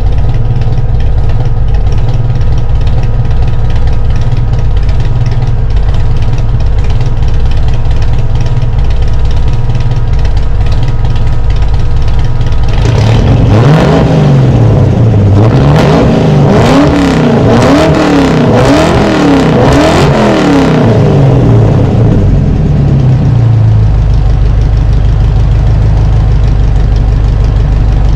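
Fox-body Ford Mustang's 5.0 V8 running loud at idle, then revved about six times in quick succession, the pitch rising and falling with each blip, before dropping back to a steady idle.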